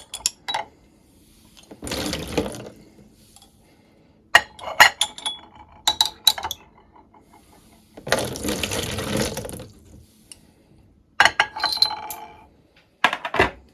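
Glass jars clinking and knocking against each other and a hard surface as they are handled, in several short clusters. Two spells of water pouring or splashing: a brief one about two seconds in and a longer one of about two seconds in the second half.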